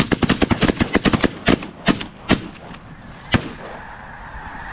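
Several shotguns firing at a rising flock of snow geese: a rapid volley of overlapping shots for about a second and a half, then four spaced single shots.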